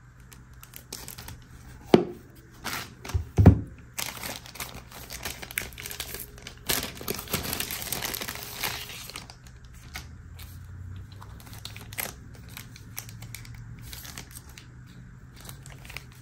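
Thin clear plastic bag crinkling and rustling as a pair of eyeglasses is worked out of it, densest a few seconds in and thinning to light scattered crackles. Two sharp knocks in the first few seconds are the loudest sounds.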